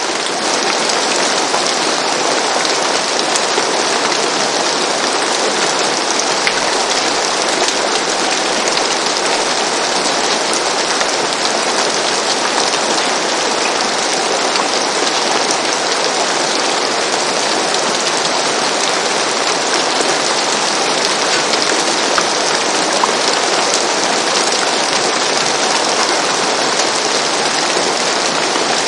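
Steady rain falling on a roof: an even hiss with scattered individual drops ticking through it.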